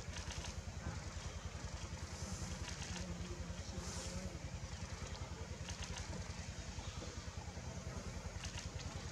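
Vehicle engine idling steadily, a low even throb.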